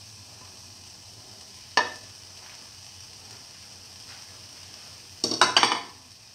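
Chopped onion pieces frying in a little hot oil in a pan, with a faint steady sizzle. A single sharp clink comes about two seconds in, and a short clatter of several clinks of kitchenware near the end is the loudest sound.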